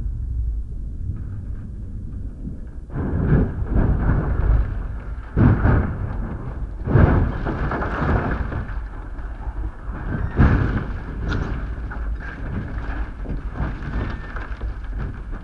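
Off-road trophy truck crashing and rolling over at high speed: a series of heavy crashing impacts, the loudest about three and a half, five and a half, seven and ten and a half seconds in, over a steady low rumble.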